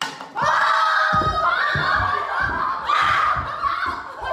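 A person's long, drawn-out yell, with heavy running footsteps thumping on a hard floor about three times a second.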